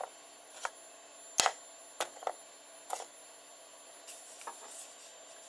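Scattered light clicks and taps of a hard PLA 3D print being handled and put aside, a few sharp ticks with the loudest about one and a half seconds in.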